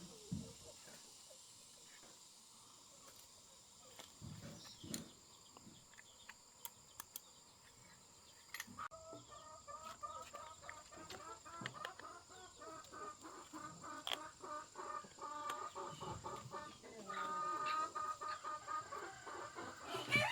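A run of short, repeated animal calls starting about nine seconds in and going on steadily, over faint scattered clicks and knocks.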